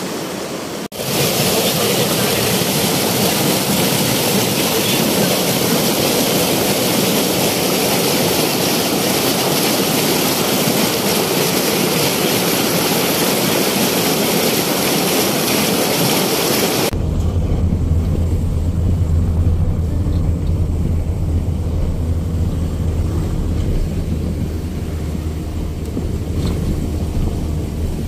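Swat River rapids rushing over boulders, a loud steady rush of white water. About seventeen seconds in it cuts to a vehicle's low, steady engine hum.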